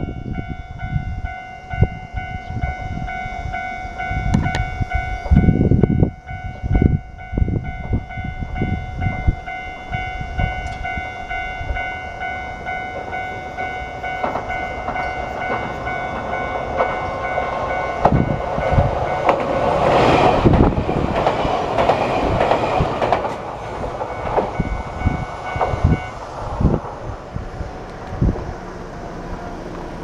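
Japanese level-crossing alarm ringing steadily while a Nagano Electric Railway electric train approaches and runs past, loudest about two-thirds of the way through, with wheels clattering over the rails. The alarm stops a few seconds after the train has gone. Wind buffets the microphone throughout.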